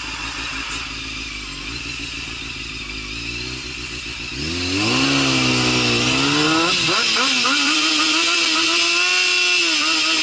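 Motorcycle engine running low and steady, then about four and a half seconds in it revs up and pulls away, its pitch rising, dipping briefly and climbing again, and easing off near the end. Wind rushes on the microphone as speed builds.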